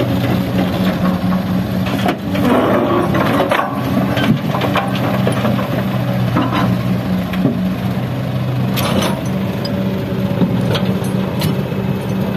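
Heavy diesel engine of an excavator working with a dump truck, running steadily, with bursts of clattering knocks about two to four seconds in and again around nine to eleven seconds.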